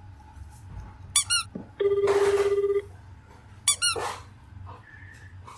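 Japanese telephone ringback tone: a pulsing low buzz about a second long, sounding once about two seconds in, as an outgoing call rings at the other end and waits to be answered. Two short bursts of squeaky chirping come just before and well after the ring.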